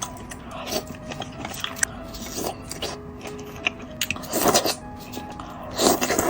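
Crisp fried food being bitten and chewed close to the microphone, with small crackles throughout and two loud crunches in the last two seconds, over background music with soft held notes.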